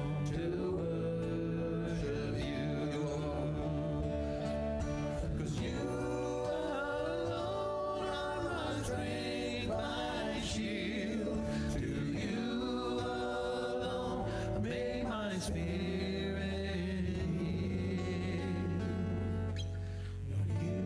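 A live church worship band plays a worship song: men's voices singing together over a bass guitar and two guitars, one of them acoustic.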